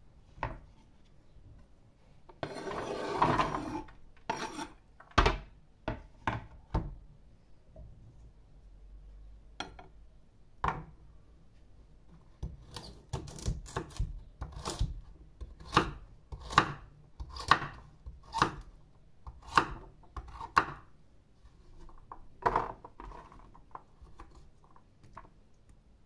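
Kitchen knife chopping on a wooden cutting board: a run of sharp knocks, about one to two a second, as a carrot is sliced into rounds. About three seconds in comes a scraping rush as the chopped onion is swept off the board into a metal baking tray.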